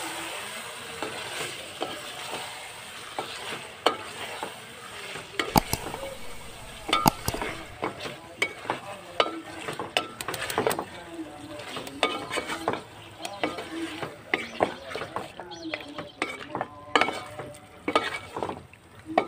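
Chicken pieces sizzling in hot oil and spice paste in a metal pot while a wooden spatula stirs them, with many irregular knocks and scrapes of the spatula against the pot.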